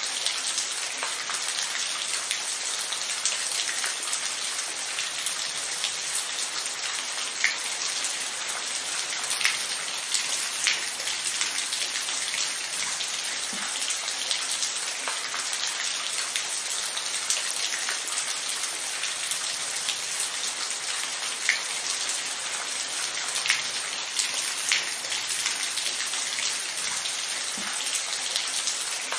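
Steady rain falling, an even hiss with many small drops ticking and a few louder, closer drips scattered through.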